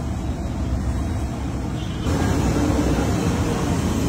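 Steady low rumble of street noise, which gets louder and fuller about two seconds in.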